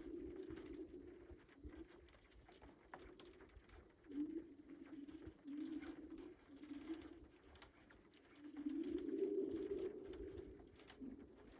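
Lake ice singing: low, hollow moaning hums that swell and fade, a long one at the start and a longer one about two-thirds through, with shorter hums between, as the sun-warmed spring ice cover shifts and breaks up. A few faint ticks sound from the ice about a quarter of the way in.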